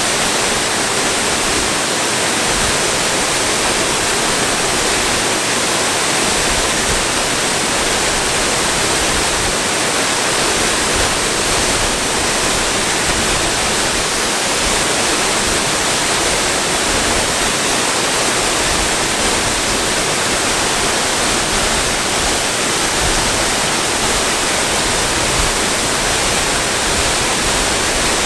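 Waterfall: water pouring and splashing in a loud, steady, unbroken rush.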